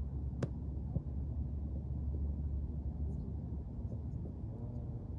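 Steady low outdoor rumble with a sharp tap about half a second in and a fainter tap about a second in.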